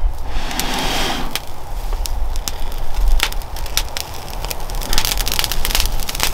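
Breath blown in long puffs into a dry-grass tinder bundle holding a char-cloth ember, and the dry grass crackling with sharp snaps as it smoulders and catches fire near the end.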